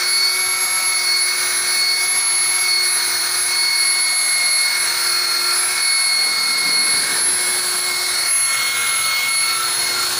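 Electric rotary car polisher running at a steady speed with its polishing pad on the car's paint: a loud, even motor whine that holds one pitch throughout.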